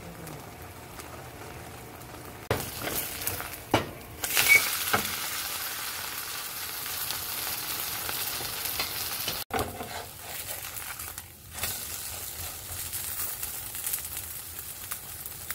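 Batter for a cilantro and vegetable pancake frying in oil in a non-stick pan, a steady sizzle that grows louder a few seconds in. A few sharp knocks come near the start.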